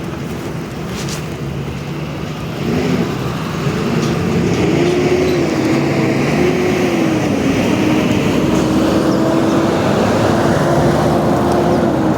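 Road traffic noise: a motor vehicle's engine grows louder about three seconds in and keeps up a steady humming tone that wavers in pitch at first.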